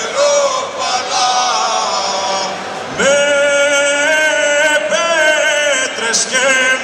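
Men singing a Cretan rizitiko: a group of male voices together for the first few seconds, then one man takes over alone about three seconds in, holding long ornamented notes.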